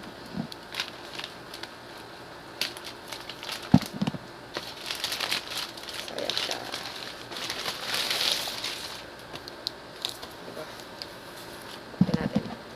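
Packaging crinkling and rustling as a parcel is unwrapped and opened by hand, with a few knocks, the sharpest about four seconds in and another near the end.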